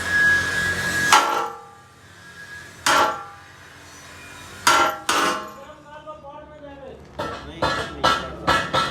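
Hammer striking metal: a few ringing blows with pauses between them, then a quicker run of lighter blows near the end. A steady machine noise with a high whine stops about a second in.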